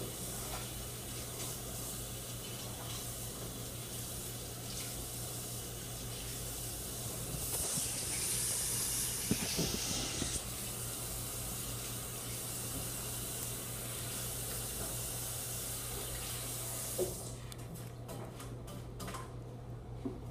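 Water running steadily, louder for a few seconds near the middle, then shut off sharply about three-quarters of the way through, followed by a few light clicks.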